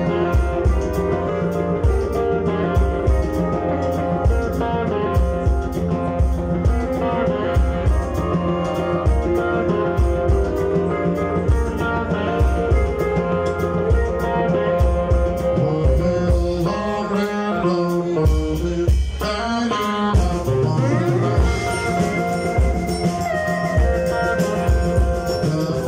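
Live blues band playing: electric guitars, electric bass and a drum kit, with a steady beat.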